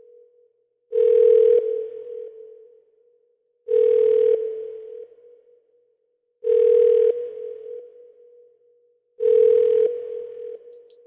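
Telephone-style beep tone in a drum and bass intro: one steady mid-pitched tone sounds four times, about every three seconds. Each is held under a second, then trails off in an echo. Near the end a run of clicks quickens into a build-up.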